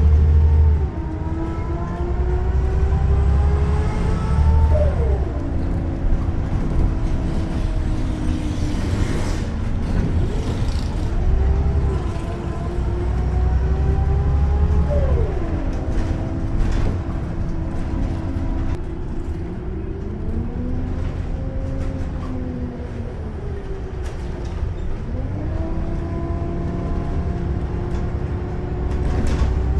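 Scania L94UB bus engine pulling away and accelerating through the gears. Its note climbs, then drops sharply at each of several gear changes, over a deep steady rumble.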